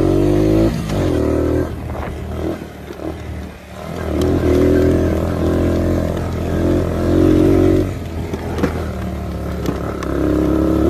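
Four-wheeler (ATV) engine running under throttle, easing off twice and picking back up.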